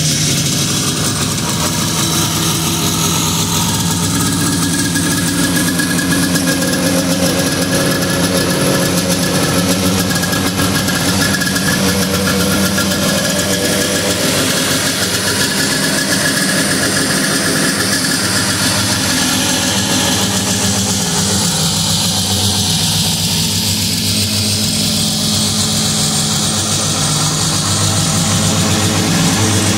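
Rupp snowmobile's two-stroke engine idling steadily on its first run in nearly 50 years.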